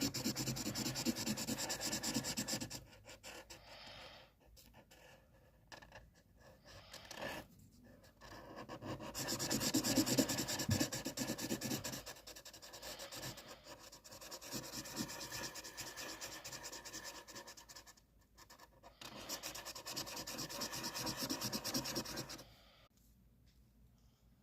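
Drawing tool scratching and rubbing across paper in runs of strokes a few seconds long, with short pauses between, then stopping near the end.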